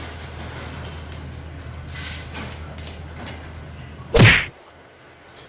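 A single loud thump, like a slam, about four seconds in, over a steady background hum that drops away right after it.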